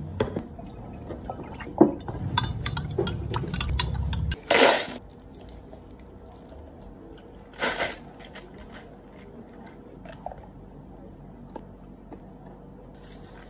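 Drink-making sounds: light clicks and taps of plastic cups and bottles over a low hum for the first four seconds or so. Then two short, loud squelching bursts, about four and a half and seven and a half seconds in, as chocolate sauce is squeezed from a piping bag into a plastic cup.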